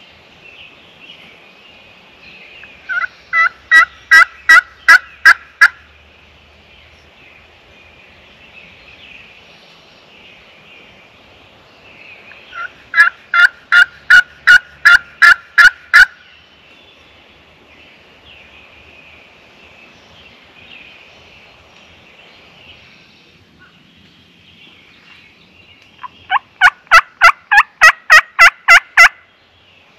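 Pot-style friction turkey call worked with a striker, giving three runs of sharp hen yelps of about ten to twelve evenly spaced notes each: a few seconds in, in the middle, and near the end.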